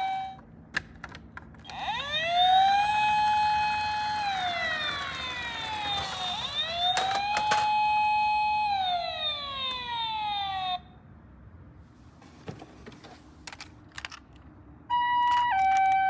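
Toy ambulance electronic siren wailing: it rises, holds, falls and rises again, then cuts off abruptly. Scattered light clicks follow, and near the end a two-tone hi-lo ambulance siren starts, alternating between a higher and a lower note.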